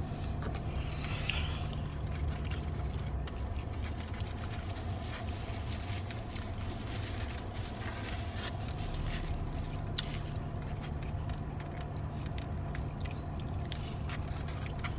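Steady low hum of a car idling, heard from inside the cabin, with scattered small clicks and smacks of eating.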